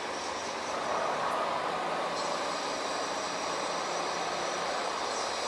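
Radio-controlled model construction machines working: a steady whirring of their electric drive motors, with a thin high-pitched whine that comes in about two seconds in.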